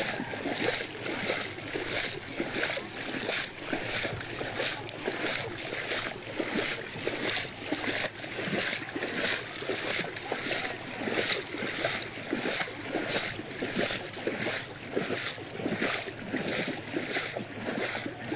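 Footsteps wading through floodwater: a steady slosh and splash of water with an even stride of about two splashing steps a second.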